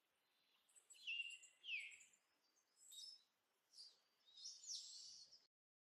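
Birds chirping faintly: a string of short, sliding chirps and a brief trill. The sound cuts off suddenly near the end.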